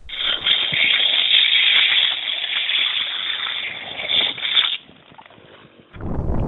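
Skateboard wheels hissing over wet tarmac as the rider leans through a hairpin bend with a hand down; the hiss cuts off suddenly near the end. About a second later, wind starts buffeting a microphone.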